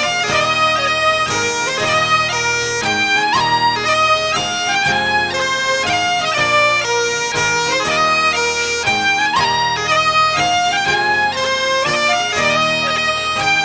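Background music: bagpipes playing a quick-moving melody.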